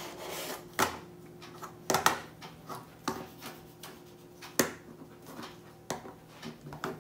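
3x3 Rubik's Cube being turned by hand: irregular plastic clicks and rasping scrapes as the layers twist, with a few louder snaps among them.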